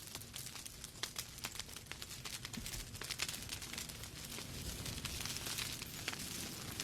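Wood fire crackling in a fireplace: burning logs giving off irregular, sharp snaps and pops over a steady low rumble.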